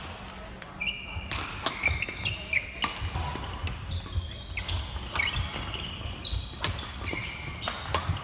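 Badminton doubles rally: sharp knocks of racket hits and footfalls, with many short high squeaks of court shoes on the sports-hall floor.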